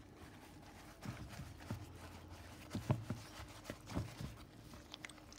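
A few soft, irregular knocks and handling sounds as a sheet of yufka pastry is dipped into a bowl of egg-and-water mixture and lifted out, over a faint steady hum.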